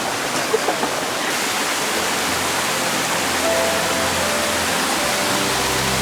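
Steady rush of a brook and waterfall. Soft background music with held notes fades in from about two seconds in.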